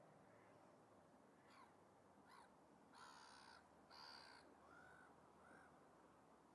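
Faint birds calling: two short falling calls, then two harsh, rough calls about three and four seconds in, followed by a couple of brief shorter calls.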